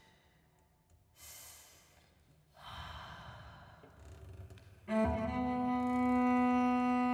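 Two soft breathy exhalations, then about five seconds in a cello starts one long bowed note, held steady and much louder.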